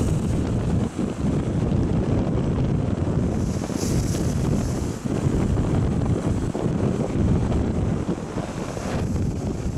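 Storm wind buffeting the microphone in heavy gusts over the rumble of rough surf. About four seconds in, a wave breaks on the rocks and throws up spray with a short hiss.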